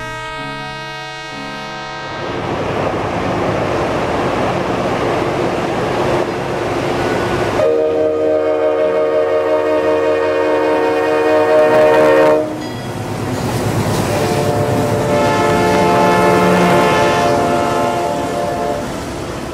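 Diesel locomotive running through deep snow with a dense rumbling rush, then sounding its multi-tone air horn in two long blasts: the first about eight seconds in, lasting about five seconds, and the second a little later, fading near the end.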